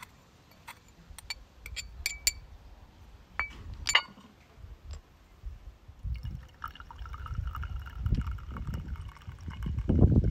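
Porcelain clinking a few times as a small teapot and its lid are handled, then liquid poured from the teapot into a porcelain bowl: a steady trickle with a ringing filling tone. A low rumble comes in near the end.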